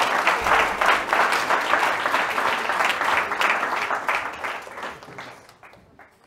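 Audience applause in a hall: many people clapping densely, then fading out over the last couple of seconds.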